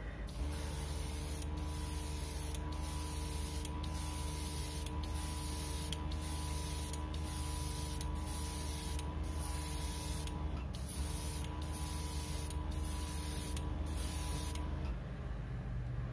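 Airbrush spraying lacquer paint in repeated bursts of about a second each, with brief breaks between trigger pulls, over the steady hum of its air compressor. Spraying and hum stop near the end.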